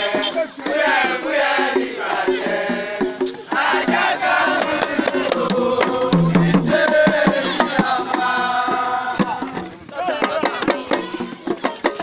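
A group of men chanting and singing together to a barrel drum beaten with a stick, with a shaker rattling. The voices fill most of the time, and the drum strokes come through more plainly after a short lull near the end.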